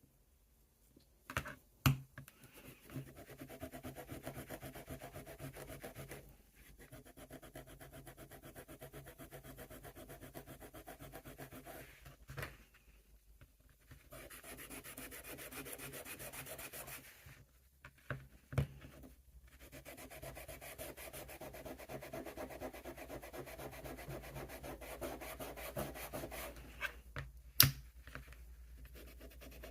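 Hand-sanding on a pocket knife: quick, even back-and-forth rubbing strokes in runs of several seconds, with short pauses between runs and a few sharp clicks, the loudest near the start and near the end.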